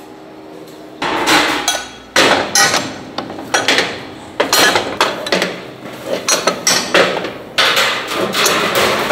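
Heavy cast-iron rice-cake molds clanking as they are handled, opened and set back on the burner stand. A run of sharp metal knocks starts about a second in, roughly two a second, after a steady low hum.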